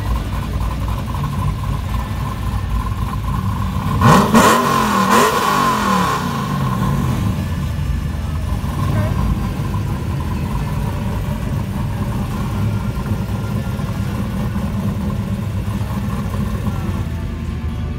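A 4th-generation Pontiac Trans Am's LS1 V8 idles with a steady rumble. About four seconds in it revs sharply twice in quick succession, the pitch rising and falling, then it settles back to a low rumble as the car rolls away.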